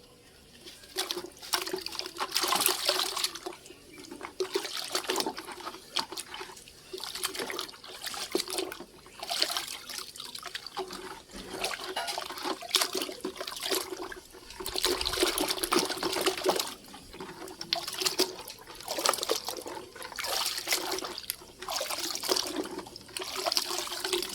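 Water splashing and sloshing in uneven bursts as a large toy mask is washed by hand in water.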